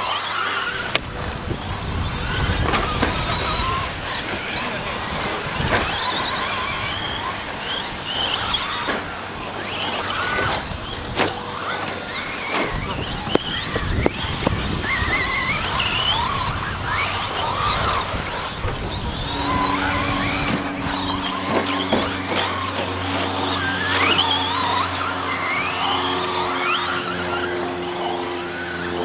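Several 1/10-scale electric 2WD short course RC trucks racing, their motors whining up and down in pitch as they accelerate and brake, with scattered sharp knocks. A steady low hum with a few held tones joins in about two-thirds of the way through.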